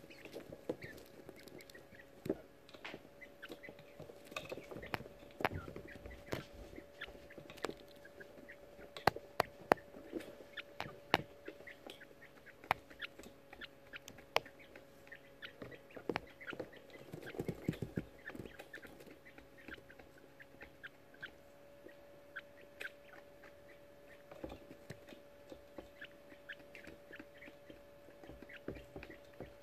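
18-day-old coturnix quail chicks chittering with short, high chirps, while they shuffle, scratch and peck in wood shavings close by, making many sharp taps and clicks. A steady low hum runs underneath.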